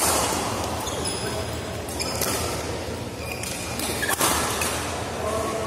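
Badminton doubles rally in an echoing hall: sharp racket strikes on the shuttlecock about a second apart, including a jump smash at the start and a loud hit about four seconds in, with brief squeaks of court shoes between shots.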